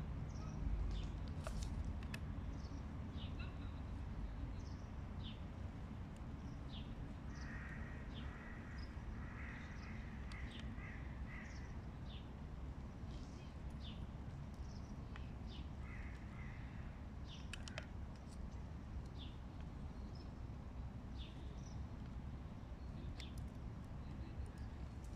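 Hooded crow cawing: a run of rough calls about a third of the way in and a shorter one after about two-thirds, over a steady low background rumble with scattered short high chirps.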